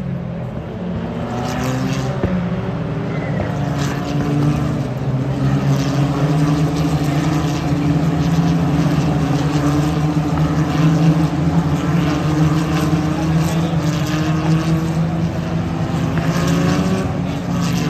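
Several W Series single-seater race cars passing in a close pack, their engines running at high revs with several overlapping notes sliding in pitch as cars go by. The sound builds over the first few seconds, then stays loud and continuous.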